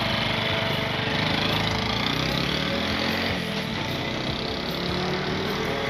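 Honda CT125 Hunter Cub's single-cylinder four-stroke engine, fitted with a new aftermarket high-flow air filter, pulling away on a test run. The revs rise and fall through the gears as the bike moves off down the street.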